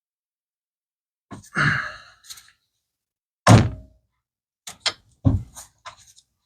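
A handful of dull thunks and light clicks as objects are handled and set down, the loudest thunk about three and a half seconds in, another near the five-second mark.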